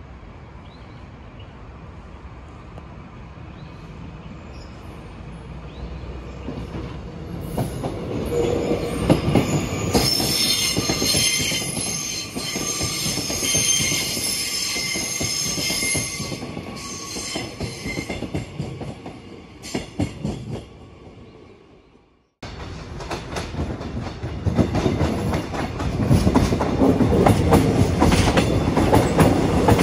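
Seoul Metro Line 2 electric trains passing: the first train's wheels squeal high-pitched on the curve as it draws near. After an abrupt break, a second train runs past close by, its wheels clattering over the rail joints.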